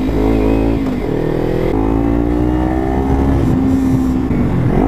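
Kawasaki Ninja 300 parallel-twin engine under way. Its pitch drops about a second in at a gear change, then rises steadily as the bike accelerates.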